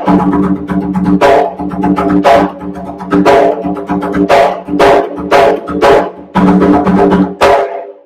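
Bomba barrel drum (barril) played by hand: a run of loud slaps and open ringing tones as the lead drum improvises accents that mark a dancer's steps over the sicá rhythm. It stops just before the end.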